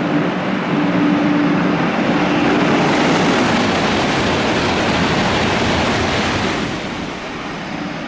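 Shinkansen bullet train passing through the station at speed: a loud rushing noise of air and wheels that builds over a few seconds and drops off sharply about seven seconds in as the train clears.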